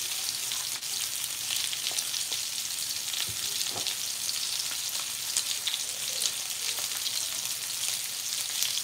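Chicken pan-frying in hot oil: a steady sizzle dotted with many small crackles and pops as the grease spatters.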